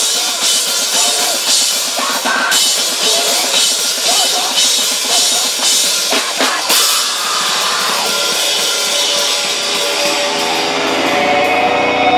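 Loud live rock band playing, the drum kit and cymbals to the fore with close, dense drumming. After about eight seconds the drum hits thin out and steady, ringing tones take over.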